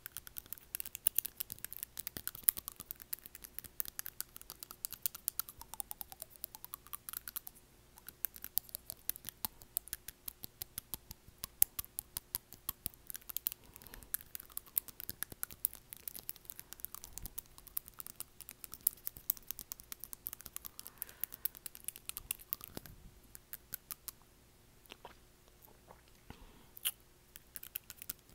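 Teeth biting and prying at an acrylic nail: dense, rapid clicks and scratches, with a short lull about three-quarters of the way through.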